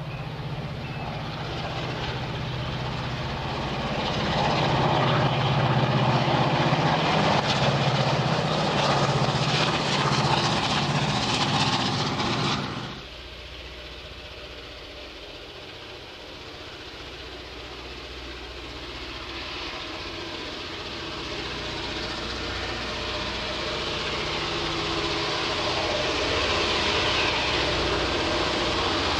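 Diesel locomotive engine running under load as a train passes close by, its low drone swelling louder and then cutting off suddenly about 13 seconds in. Then a second diesel locomotive, NSW 81 class 8170, is heard approaching, its engine slowly growing louder.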